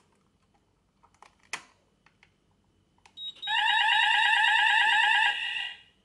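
Fire alarm sounder going off with a loud, fast warbling tone for about two and a half seconds, then cutting out. It is set off by a manual call point being tested, and a click comes before it.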